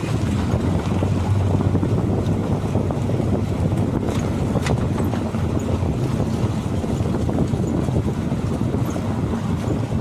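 Vehicle running, a steady low rumble of engine and road noise with wind on the microphone, and a couple of short sharp knocks about four and five seconds in.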